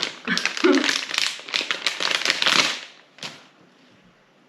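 Plastic packaging crinkling and rustling as it is handled, in quick crackly bursts that stop about three seconds in, followed by a single sharp tap.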